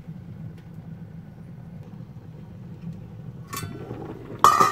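Stainless steel pot lid handled on a soup pot: a light metal clink about three and a half seconds in, then a louder ringing clank near the end as the lid is lifted. A steady low hum runs underneath.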